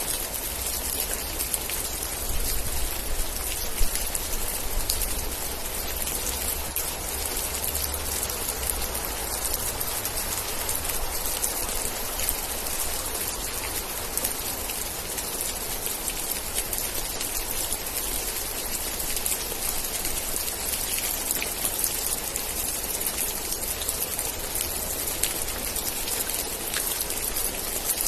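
Steady rain: a dense hiss of falling water with many individual drops ticking through it, over a low rumble that is strongest in the first few seconds. One louder drop hits about four seconds in.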